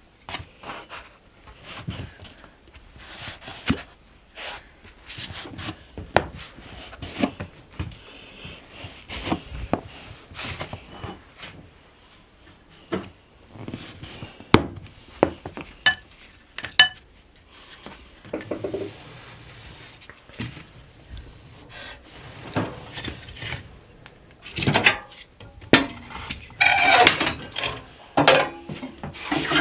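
Clatter of kitchen work: irregular knocks, taps and scrapes of wooden and metal utensils, dishes and pans being handled, with a louder, busier stretch near the end.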